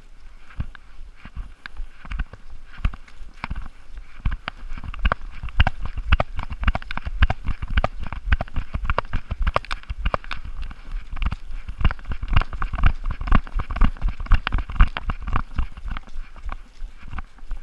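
Chocolate Labrador running over dry fallen leaves: rapid, uneven thumps of its footfalls with leaf rustling, heard from a camera strapped to the dog that jolts with each stride.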